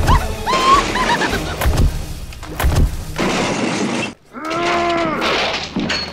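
Crashing, shattering impacts and rushing noise, then a long pitched cry that arches up and down, about four and a half seconds in.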